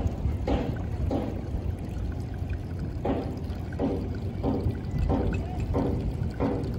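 Shallow stream of water trickling and splashing over the mud and rocks of an exposed riverbed, in short gurgles about every half second, over a low steady rumble.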